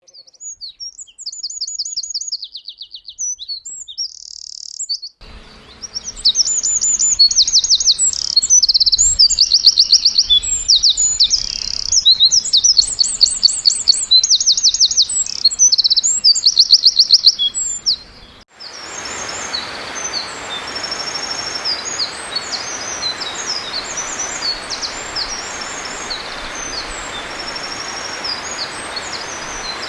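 Eurasian wren singing: long, fast strings of loud, high trills and warbling notes. About 18 seconds in, the song turns fainter over a steady rushing hiss.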